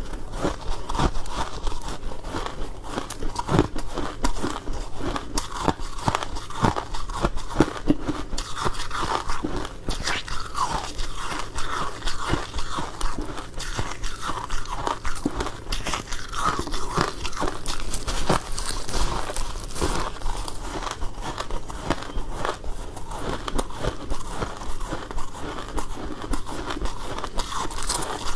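Close-up crunching of a mouthful of freezer frost being bitten and chewed: dense, irregular crackling crunches with no pauses.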